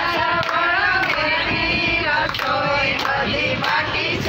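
A group of women singing a devotional bhajan to Shiva together, clapping their hands in time with the song about twice a second.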